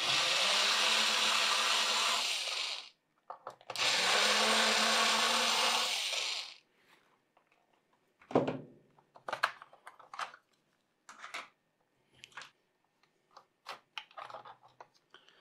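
A small electric screwdriver runs twice, about three seconds each, backing out the screws of a laptop's hard-drive cover. After that come scattered light clicks and knocks of plastic as the cover is handled and lifted off.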